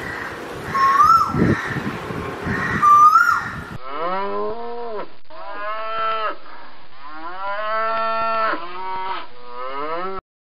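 A cow mooing: a run of long moos, one after another, that cuts off abruptly near the end. It is laid in as a sound effect for the toy cow. Before it, for the first few seconds, there are low knocks and handling noise and two short rising whistle-like calls.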